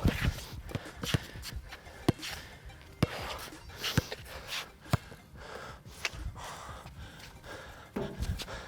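A basketball being dribbled, bouncing about once a second, with heavy panting breaths in between.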